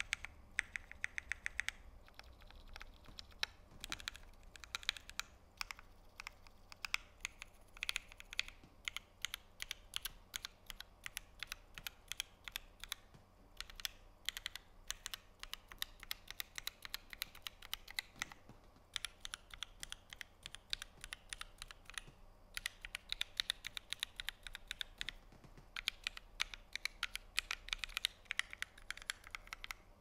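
Keystrokes on a Typemaster 180 mechanical keyboard fitted with lubed C3 Equalz Tangerine v2 linear switches, a brushed stainless steel plate and GMK keycaps. The clacks come in quick runs with short pauses between them.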